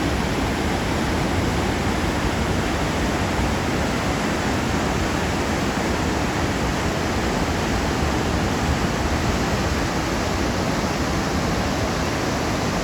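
Waterfall rushing: a steady, loud wash of falling water with no change throughout.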